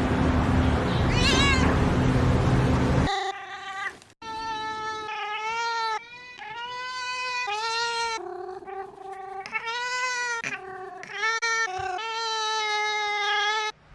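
A cat meows over loud background noise. Then, after an abrupt change, a cat yowls in a string of long, drawn-out calls, each rising and falling slightly in pitch.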